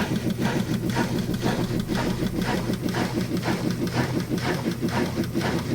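Whirlpool washing machine transmission running with a low hum and a rhythmic knocking at about four knocks a second, the noise it makes when speeding up; the uploader points to worn transmission gears.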